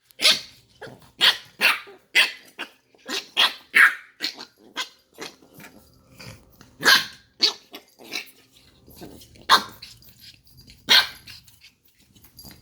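Puppies barking while they play-chase each other: short sharp barks in quick runs that thin out after about four seconds.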